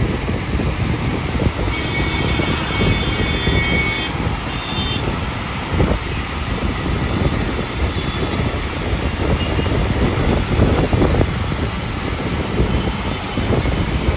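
Steady rumble of a moving bus heard from inside the cabin, with road and wind noise and a single knock about six seconds in.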